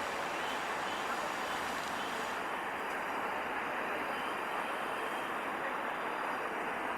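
Metre-gauge passenger train rolling past, with the steady noise of coach wheels on the rails.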